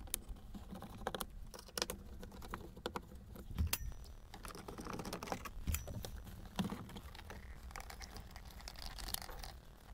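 Hands working plastic dashboard trim and instrument-panel parts loose from their clips: irregular small clicks and knocks with a few short scrapes.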